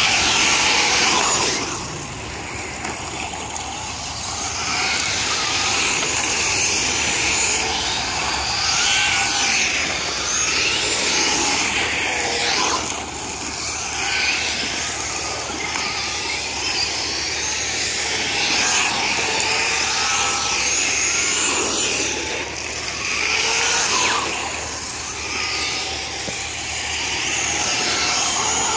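Several electric RC short-course trucks (Traxxas Slash 4x4) racing, their motors whining in pitches that rise and fall as they accelerate and pass, over a steady hiss.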